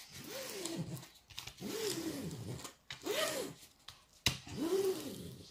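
Hands rubbing and pressing a creased diamond-painting canvas flat on a table, a soft rustling of paper. Over it, four short rising-then-falling voice-like sounds come about once every second and a half.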